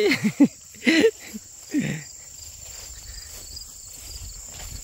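Steady high-pitched chorus of insects in a grassy meadow, with a man's voice in three short bursts in the first two seconds, then footsteps swishing through tall grass.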